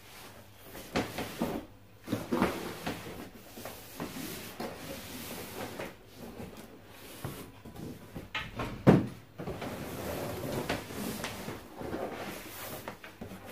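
Cardboard box being handled and opened: scraping and rubbing of cardboard flaps with irregular knocks, the loudest about nine seconds in.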